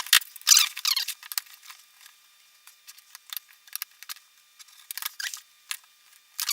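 Hands handling small workpieces on a bench: irregular light clicks, taps and brief scrapes, busiest at the start and again near the end, with quieter gaps between.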